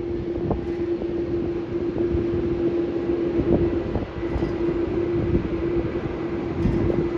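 Steady jet engine drone: a constant hum over a low, uneven rumble, with wind buffeting the microphone.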